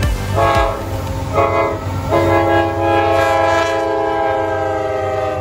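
CSX ES44AH diesel locomotive's multi-chime air horn sounding two short blasts and then one long held blast, warning at a road grade crossing. The locomotive's low engine rumble runs underneath, and the long blast ends abruptly.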